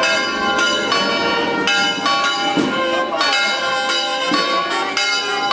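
Church bells pealing: strokes come in quick, irregular succession, about two a second, each ringing on into the next.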